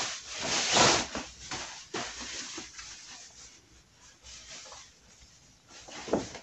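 Cloth rustling as a pair of trousers is shaken out and unfolded, in several irregular bursts, loudest about a second in and quieter after that.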